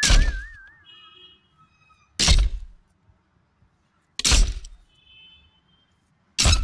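Four dull thuds about two seconds apart, digging sound effects that go with a small toy shovel striking the sand. A wavering, whistle-like cartoon tone fades out in the first second, and faint short chime-like tones sound between the thuds.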